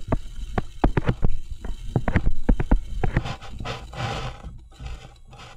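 Pen stylus tapping and scratching on a touchscreen as numbers are handwritten: a string of sharp, irregular clicks.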